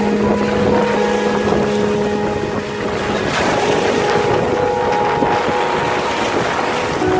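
Strong gusty wind roaring over the microphone and surf breaking on the shore, with background music of long held chords over it.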